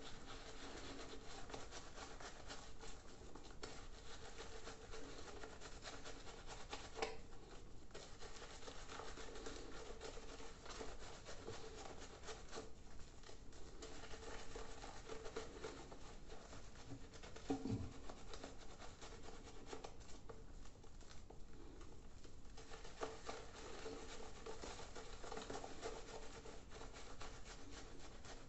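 Razorock Snowman 24mm synthetic shaving brush working shaving-soap lather over the face: a steady soft rubbing and swishing of bristles on lathered skin, with a brief low thump a little past halfway.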